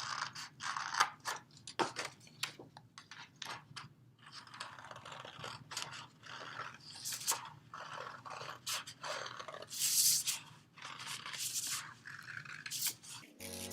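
Scissors cutting out paper circles: a run of irregular snips with paper rustling between them.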